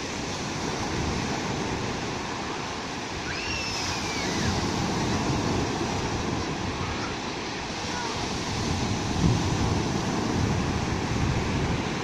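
Sea surf breaking and washing up a sand beach in a steady rushing wash, swelling louder about four seconds in and again from about nine seconds, as bigger waves come in.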